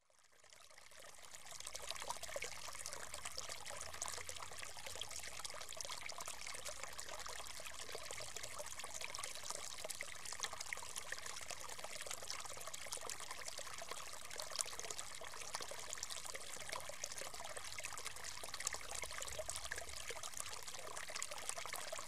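Water trickling and splashing steadily down a vivarium's grouted foam rock waterfall, pumped round during a water test; it fades in over the first two seconds.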